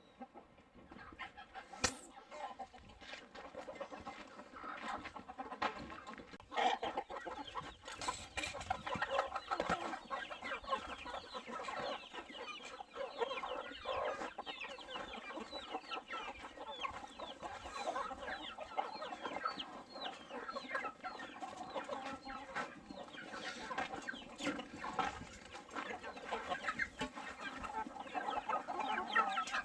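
A flock of Cheonggye chickens (a Korean green-egg breed) clucking and calling in many short, overlapping calls, with a few sharp knocks about two, six and eight seconds in.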